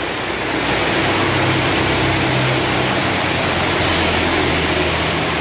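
Heavy rain pouring down on a street, with a motorcycle engine passing close by; its steady hum is strongest in the middle and fades near the end.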